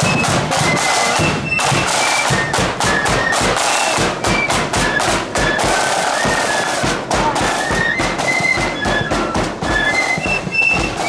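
Marching flute band playing a tune: a high melody on flutes over a steady beat of side drums.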